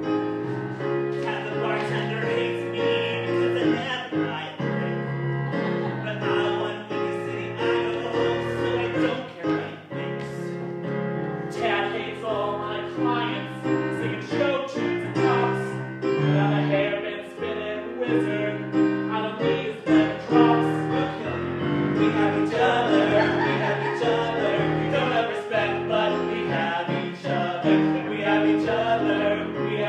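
Piano accompaniment of a musical-theatre song, with singers' voices over it.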